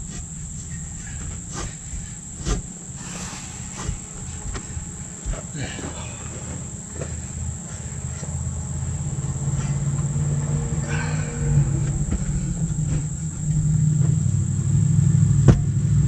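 Scattered knocks and clunks as a bus tire is worked off its steel split-ring wheel by hand, over a steady high insect drone. A low rumble builds from about halfway through and is loudest near the end.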